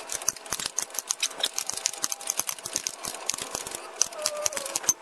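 Rapid, irregular metallic clicking and clinking of a hand wrench working a 15 mm hub mounting bolt loose on the front steering knuckle.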